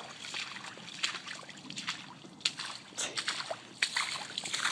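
Footsteps in rubber boots splashing through shallow standing water: a run of irregular splashing steps that grow louder in the second half.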